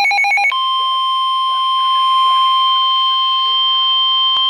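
Emergency alert tones: a rapidly pulsing electronic tone for the first half-second, then a single steady high alarm tone, the weather radio warning tone that announces a severe thunderstorm warning. A single click sounds near the end.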